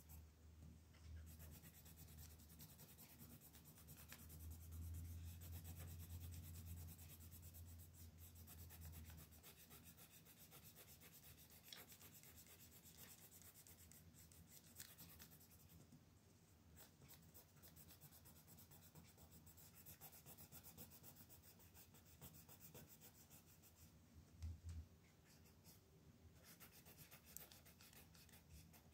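Faint scratching of a colored pencil shading on paper in quick back-and-forth strokes. A low hum sits under the first third, and there is a soft low knock about 24 seconds in.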